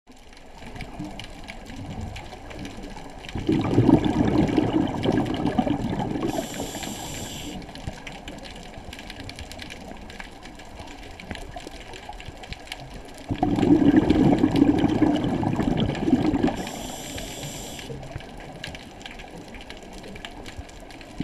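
Scuba diver breathing through a regulator underwater: two long exhalations of bubbles about ten seconds apart, each followed by a short hiss of inhaling through the regulator.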